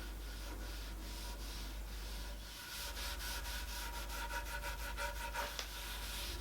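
Beeswax-and-mineral-oil breadboard butter being rubbed into a wooden breadboard, with a fast run of short back-and-forth strokes, about six a second, starting about three seconds in.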